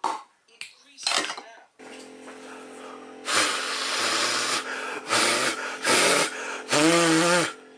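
A man's loud, drawn-out anguished cries and gasps as a cup of milk spills across the counter, over a steady droning tone; the last cry wavers in pitch.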